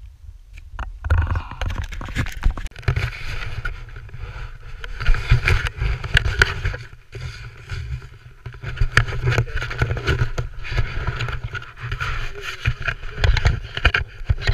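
Skis scraping and hissing over snow, with an uneven low rumble of wind on the microphone, starting about a second in.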